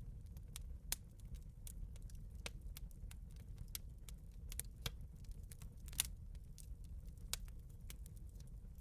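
Wood campfire crackling: irregular sharp pops and snaps over a steady low rumble, with two louder pops about a second in and about six seconds in.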